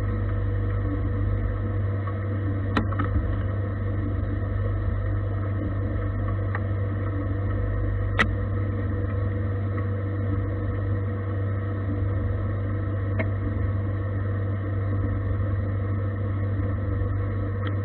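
Gildemeister CTX 400 S2 CNC lathe turning a metal bar: a steady machine hum with a constant whine from the spinning spindle and cutting, broken by a few brief sharp ticks.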